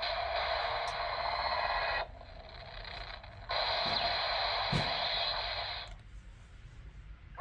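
Mumeiken Kyomu electronic toy sword playing its sound effects through its small built-in speaker: two long hissing effects, the second starting about three and a half seconds in, with a brief click near its middle.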